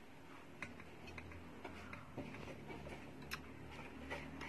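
Faint eating sounds while broth is sipped and tasted from a spoon: a few scattered soft clicks and smacks, over a low steady hum.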